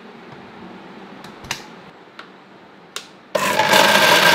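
A few light clicks, then about three seconds in a Hyundai countertop blender's motor switches on at speed with a loud steady whine, its blades churning slime in the glass jar.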